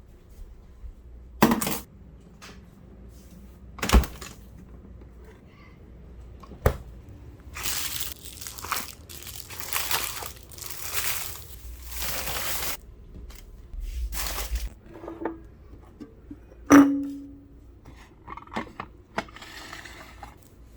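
Glass and dishes clinking and knocking as items are handled and set down, one strike about two thirds of the way through ringing briefly. A stretch of steady hiss fills several seconds in the middle.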